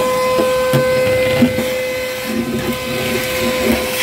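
Vacuum cleaner running with a steady whine, its hose sucking up dirt from a flood-soaked car trunk floor, with scattered small knocks and rattles as debris and the nozzle hit.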